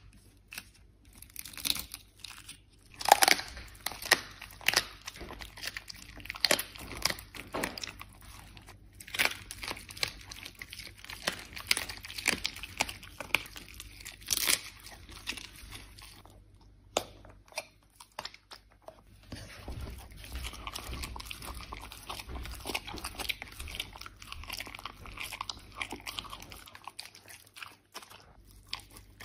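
A Samoyed biting and chewing raw quail and steak, with irregular loud crunches as the small bird's bones break between its teeth. The chewing turns quieter and steadier in the last third.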